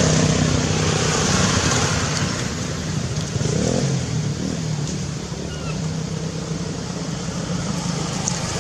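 A motor vehicle's engine passing and fading, over a steady noisy background, with a few short faint high squeaks.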